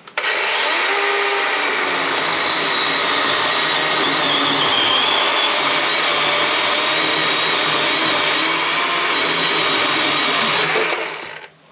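Chainsaw running flat out, cutting off a big knot that sticks out from a spruce log and is hitting the side of the sawmill. It starts suddenly, holds steady with a high whine for about eleven seconds, and dies away near the end.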